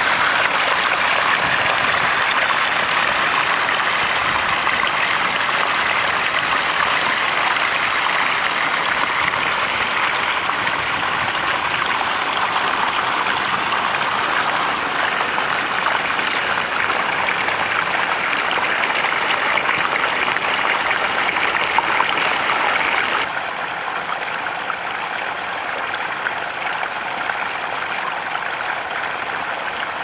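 Water from a small man-made backyard waterfall splashing and gurgling over rocks in a steady rush. About three-quarters of the way through it drops suddenly to a quieter, softer flow.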